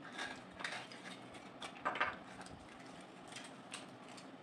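Metal spoon scraping and clicking against the inside of a small plastic yogurt cup, an uneven string of short scrapes and taps, the loudest about two seconds in.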